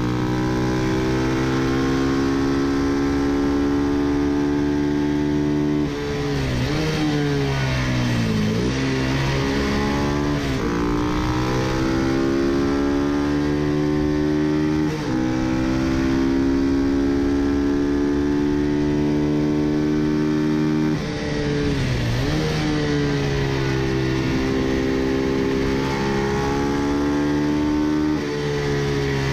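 Ducati 250 bevel-drive single-cylinder racing engine running at high revs under throttle, heard from a camera on the bike with wind rush. The pitch drops sharply at gear changes about 6, 15, 21 and 28 seconds in, and twice the revs dip and climb back as the bike brakes and accelerates through bends.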